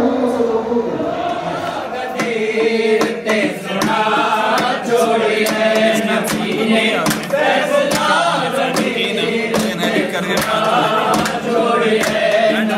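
Group of men singing a devotional chant together, with regular hand claps keeping the beat.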